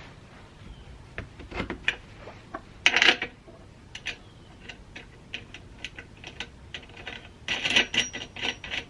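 Irregular clicks and clatter of small hard objects being handled, with a louder burst about three seconds in and a longer clattering run near the end.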